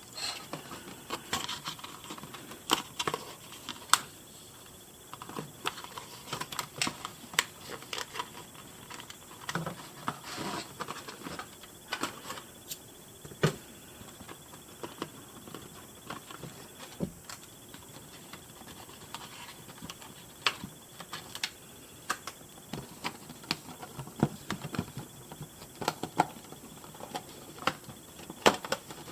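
Hands working a doll out of its packaging: irregular clicks, snaps and scratchy rustles of plastic and cardboard as straps and plastic prongs are pulled free.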